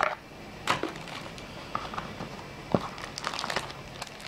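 Knocks and light rustling of accessories and a power adapter cable being handled in an open cardboard box, with a few separate knocks, then a short burst of plastic-bag crinkling near the end as a bagged remote is lifted out.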